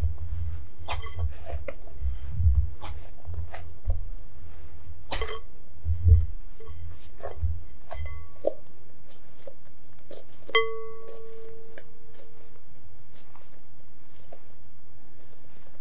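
Enriched yeast dough kneaded by hand in a glass bowl: soft low thuds and small clicks as it is pressed and folded, thinning out about halfway. About ten seconds in, one clear clink sets the glass bowl ringing.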